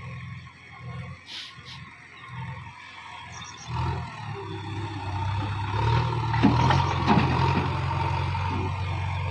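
JCB 3DX backhoe loader's diesel engine running, uneven through the first half, then picking up revs and holding louder and steady from about six seconds in. A few sharp metallic knocks come just after the engine picks up.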